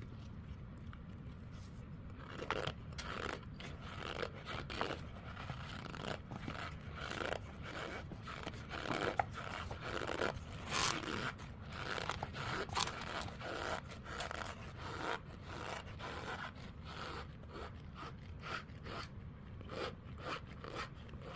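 Irregular crunching and scraping noises made with marshmallows, in many short strokes starting about two seconds in, over a steady low hum.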